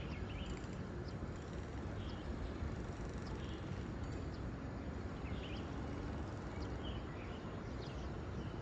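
Birds chirping now and then, short high calls over a steady low outdoor rumble.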